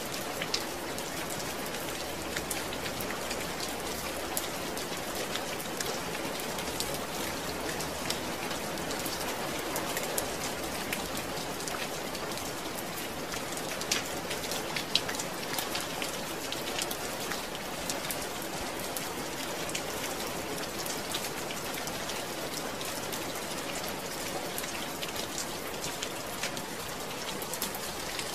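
Steady rain falling, with a dense patter of individual drops striking a surface.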